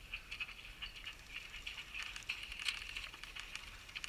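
Faint, irregular light clicks and rustling.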